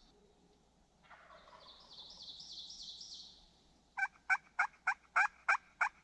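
Turkey yelping: a loud run of about eight sharp yelps, roughly three a second, beginning about two-thirds of the way in, after a fainter warbling call.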